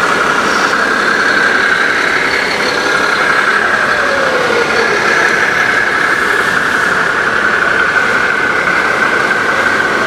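Radio-controlled scale trucks running steadily, with a constant high whine and a short falling tone about four to five seconds in: electric drive motors and sound modules playing truck engine noise.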